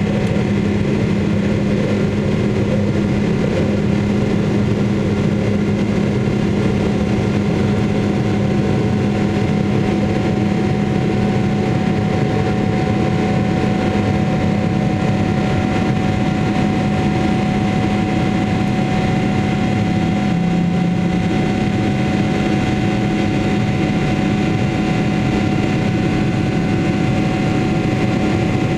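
Steady jet engine and rushing-air noise inside an airliner cabin in flight, with several steady hums running through it.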